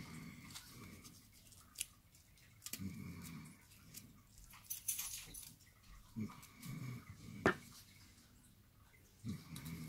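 A puppy making short, low whimpering sounds several times, mixed with faint crinkling of aluminium foil being pressed by hand. A single sharp tap, the loudest sound, comes about three-quarters of the way through.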